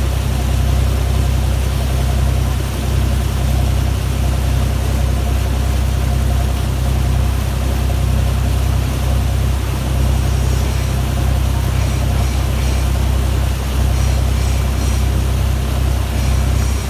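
Motorboat engine running steadily under way, a deep, even drone, with the rush of water churned up in the wake.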